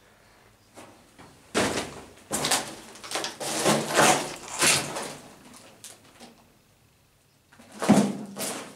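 A run of loud, noisy scrapes and knocks, then one more near the end.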